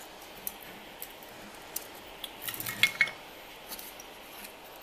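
Small hand-work noises at a soldering bench: a few light clicks, then a short burst of metallic clinks and rattles with a brief ring about three seconds in, as the soldering iron is set down and the circuit board is handled.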